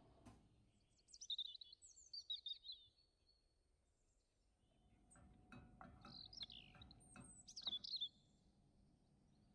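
Birds chirping in two short runs of quick high calls, one about a second in and another around six seconds.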